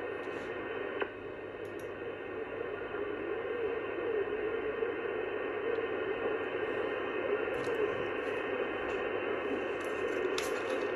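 Receiver hiss and static from an sBitx transceiver on the 11 m band in upper-sideband mode, between transmissions, with faint wavering tones of weak signals under the noise. The sound is narrow and tinny, cut off above the voice band.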